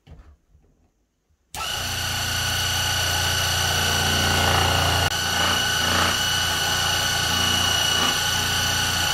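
Scroll saw switched on about a second and a half in, running steadily with a motor hum and a high whine as its blade cuts a slot through a softwood slice.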